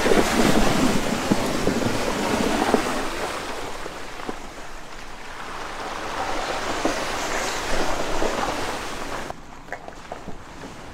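Tyres of a 2020 Toyota 4Runner driving through deep muddy puddles, a steady rushing splash of water thrown up around the wheels, loudest at the start and swelling again later. The splashing stops suddenly near the end, leaving a quieter background with a few light ticks.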